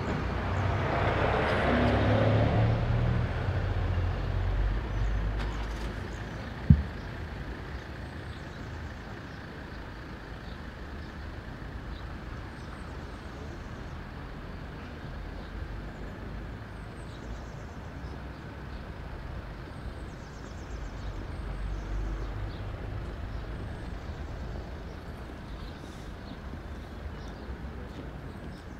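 A road vehicle running, with a louder rushing noise over a low rumble in the first few seconds, then a steady, quieter rumble. A single sharp knock sounds about seven seconds in.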